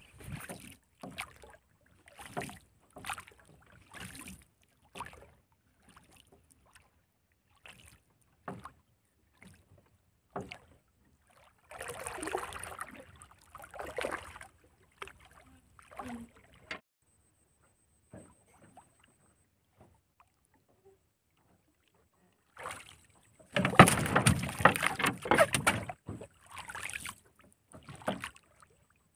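Fishing line being hauled by hand over the side of a wooden boat: scattered light knocks and rubs against the wooden hull, with a louder stretch of rough knocking noise lasting a couple of seconds near the end.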